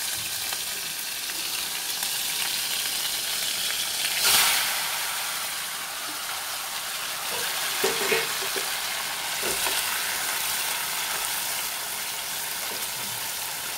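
Crab pieces frying in hot oil in a kadai, a steady sizzle stirred with a wooden spatula. The sizzle surges louder about four seconds in, and a few short knocks come around eight seconds in.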